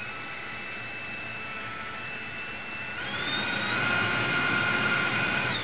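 Schubeler 93mm HST carbon-fibre electric ducted fan running at part throttle with a steady high whine. About three seconds in, the throttle goes up and the whine steps to a higher pitch and gets louder. It drops back to the lower pitch near the end.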